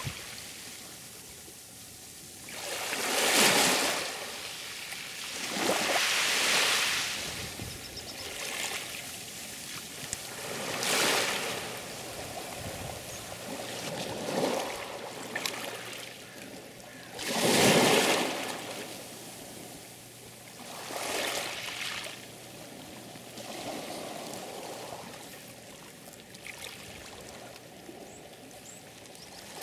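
Sea waves washing in and breaking, each surge swelling and fading every few seconds, the loudest one about eighteen seconds in.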